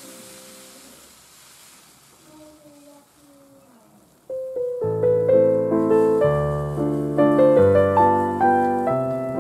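Background piano music: after a quiet, fading stretch, a piano tune with struck chords comes in loudly about four seconds in.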